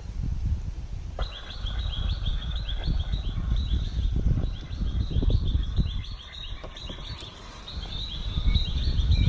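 A bird calling a rapid, continuous series of short, high, falling notes, starting about a second in, over a steady low rumble.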